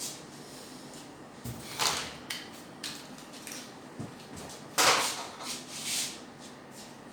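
Scattered handling noises: a low knock, a click and a few short scraping rustles, the loudest about five seconds in.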